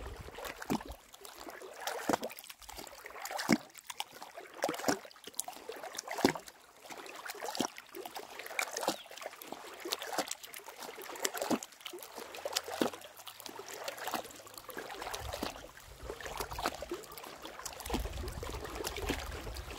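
Water sloshing and slapping against a small boat's hull in short, irregular splashes, about one every half second to a second: waves from a passing motorboat's wake.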